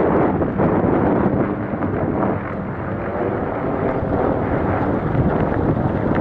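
Mountain bike descending a dirt trail: wind buffeting the microphone over the steady rumble of tyres on the ground, with a few small clicks from the bike.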